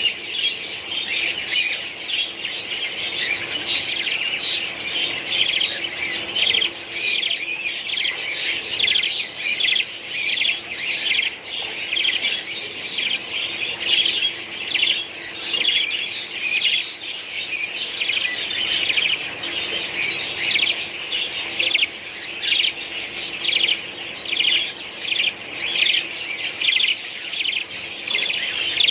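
A colony of budgerigars chirping and chattering continuously, many birds at once, over a faint steady hum.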